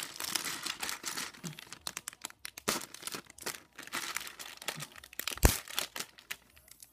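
Plastic Lego parts bag crinkling and tearing as it is opened by hand, with one sharp snap about five and a half seconds in.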